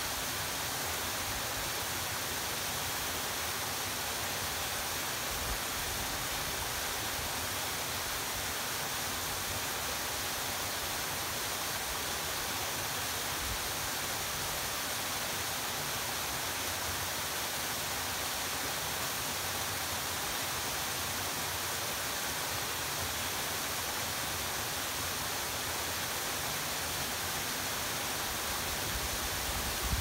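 Waterfall pouring down a rock face, a steady hiss of falling water, with a few brief low rumbles of wind on the microphone.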